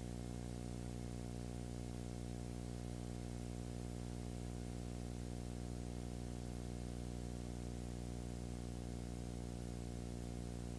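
Steady low electrical hum with many overtones under a constant hiss, unchanging throughout: background noise on the soundtrack of a silent home-movie transfer, with no sound from the scene itself.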